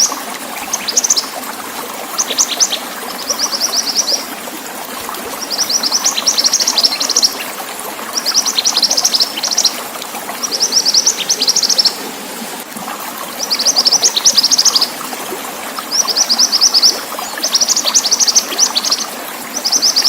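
Mantenan songbird singing: repeated bursts of rapid, high chirped notes, each burst about a second long with short pauses between, over a steady background of running water.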